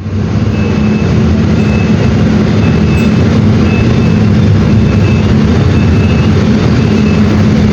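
Mercedes-Benz OF-1721 BlueTec 6 bus's OM-924 LA four-cylinder inline diesel engine running steadily, with a faint high beep repeating about once a second.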